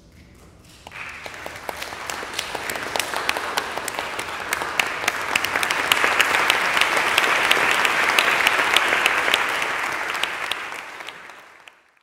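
Audience applauding: the clapping starts about a second in, swells to a full, dense ovation and fades away near the end.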